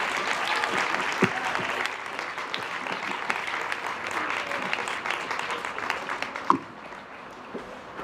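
Audience applauding, a dense patter of claps that fades away after about six and a half seconds, with a single knock just as it dies down.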